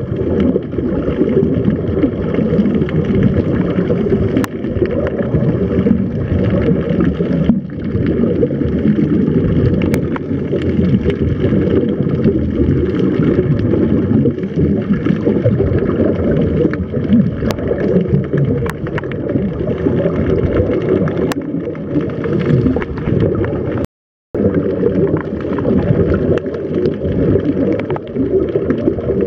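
Muffled underwater rumble and gurgling of a scuba diver's regulator bubbles, heard by a camera submerged close to him. The sound cuts out completely for a moment about 24 seconds in.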